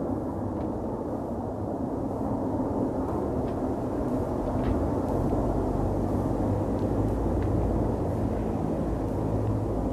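Steady low rumble of a moving train, building slightly in the second half, with a few faint clicks.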